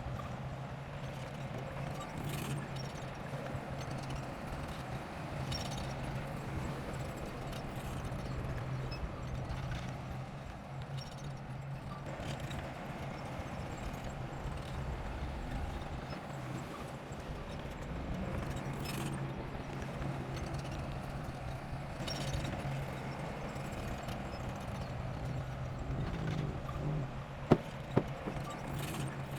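Diesel engine of heavy earthmoving equipment running steadily with a rough, clattering beat, and two sharp knocks near the end.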